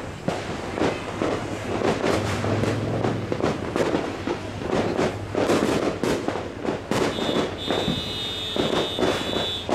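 Fireworks and firecrackers going off in rapid, overlapping succession, a dense continuous crackle and popping. About seven seconds in, a steady high whistle joins and holds to the end.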